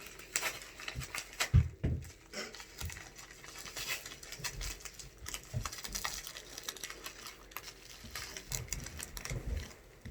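A knife slitting open a shipping package and the packaging being pulled apart by hand: irregular scraping, rustling and clicks, with a heavy thump about a second and a half in.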